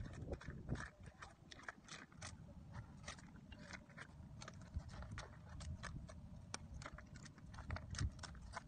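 Irregular hard clicks and knocks of clam shells and stones struck and shifted by hand while clams are dug out from between rocks, several a second, over a low steady rumble.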